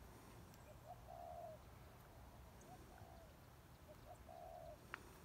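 Faint cooing of a dove, a short note followed by a longer one, repeated three times over near silence. A single light click comes near the end.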